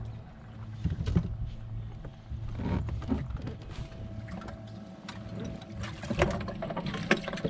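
Knocks and rattles of fish and gear being handled on a bass boat deck while culling, with a few louder knocks about a second in and about six seconds in, over a steady low hum.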